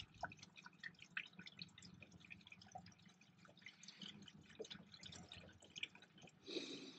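Windscreen washer fluid poured slowly from a jug through a funnel into a van's washer reservoir: faint, irregular dripping and trickling.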